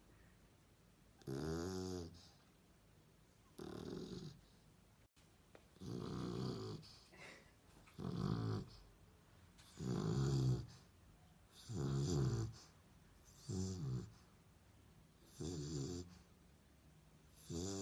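Dog snoring, a pitched snore about every two seconds with quiet breaths between.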